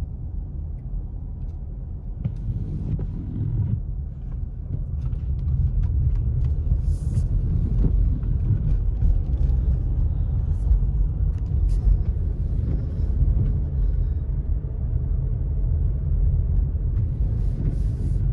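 Car cabin road noise: a low, steady rumble of tyres on wet pavement and the engine, growing louder about six seconds in.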